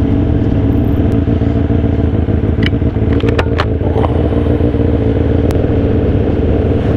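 Sport motorcycle's engine idling steadily at low revs as the bike rolls up and stops, with a few sharp clicks near the middle.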